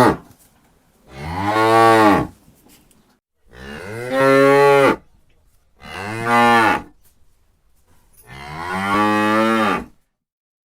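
Cow mooing: four long moos with short pauses between, each rising and then falling in pitch.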